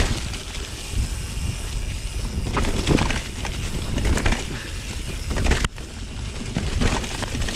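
Mountain bike descending a leaf-covered dirt trail: tyres rolling over dry leaves and dirt, with sharp knocks and rattles from the bike over bumps. A heavy low rumble of wind buffets the microphone throughout.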